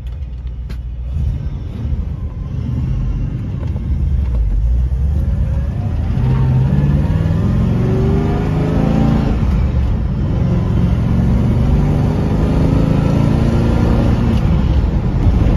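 1965 Pontiac Catalina 2+2's V8 engine heard from inside the cabin as the car drives and accelerates, the engine note climbing in pitch from about six seconds in, then holding steady.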